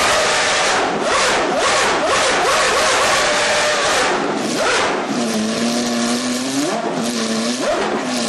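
McLaren Formula 1 V8 engine being revved hard at high rpm, then settling to a lower, steadier note about five seconds in, with two quick rev blips near the end.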